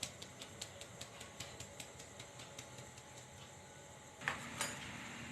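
Flour being sifted through a hand sieve, its rim tapped in a quick light rhythm of about four or five taps a second that fades out, followed by two louder knocks near the end.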